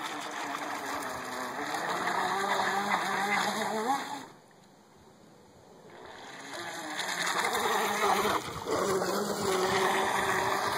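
Mini Thunder radio-controlled boat's small motor running at speed, its pitch rising and falling as it is throttled through turns, with the hiss and splash of its wake. The motor sound cuts out about four seconds in and builds back up a couple of seconds later.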